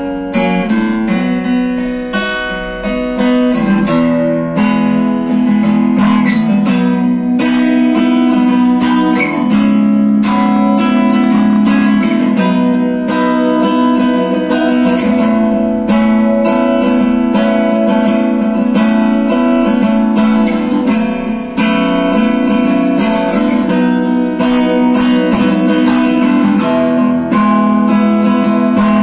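Steel-string acoustic guitar played continuously, strummed chords mixed with picked notes, heard through a stick-on soundhole pickup.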